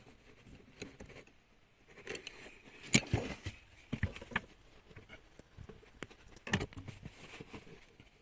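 Irregular light clicks and taps, with two sharper knocks, one about three seconds in and one about six and a half seconds in.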